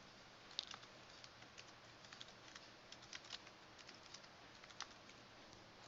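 Faint, irregular keystrokes on a computer keyboard, typing terminal commands, over a low steady hiss.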